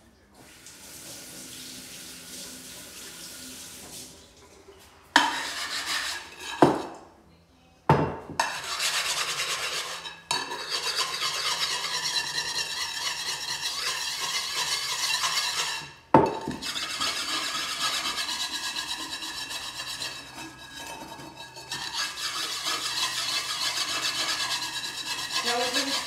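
Tap water running for a few seconds as a homemade dishwasher tablet is wetted, then a few sharp knocks and a long stretch of hard scrubbing: the wet, abrasive tablet rubbed back and forth on the outside of a greasy metal pot to degrease it.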